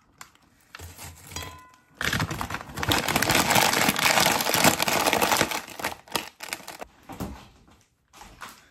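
Foil-lined snack chip bag crinkling and rustling loudly as it is handled and folded, starting about two seconds in and thinning out in short bursts toward the end.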